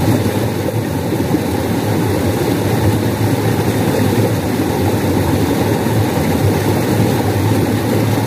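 Steady, low rushing of water flowing and falling over a small cascade in a narrow stream.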